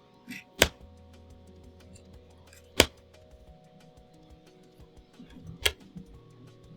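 Soft background music with long held notes, broken by three sharp clicks spaced two to three seconds apart.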